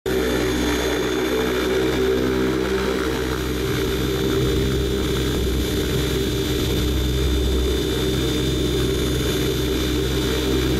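Aircraft engine running steadily in flight, heard on board: a constant low drone with a thin high whine above it.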